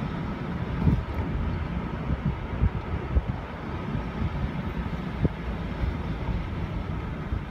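Low rumble of a vehicle driving slowly, with wind buffeting the microphone in irregular gusts.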